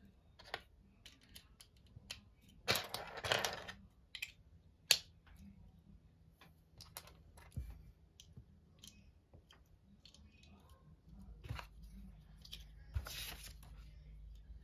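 Plastic Lego bricks clicking and clattering as pieces are picked out of a loose pile and pressed together. There are scattered light clicks throughout, and two longer rattling bursts, about three seconds in and near the end.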